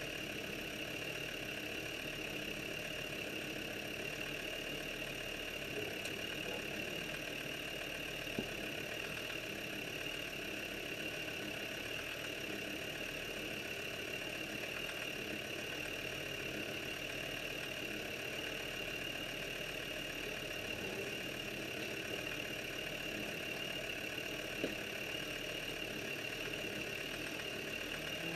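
Land Rover engine running steadily at low speed as the vehicle crawls along a rough rocky track, with a steady high whine over it. Two sharp knocks come about a third of the way in and near the end.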